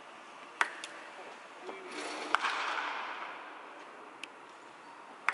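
Wooden bat striking a baseball off a batting tee: a sharp crack about half a second in, another knock as loud about two seconds later, and fainter knocks after.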